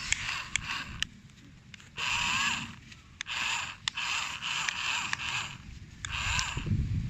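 Electric RC toy car's motor and gears whirring in several short bursts, starting and stopping with brief pauses between, the pitch sliding as it speeds up.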